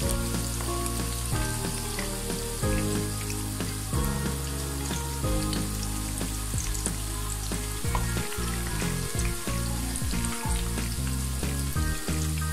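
Cabbage and vegetable pakoras deep-frying in hot oil, a steady sizzle with small crackles, with background music underneath.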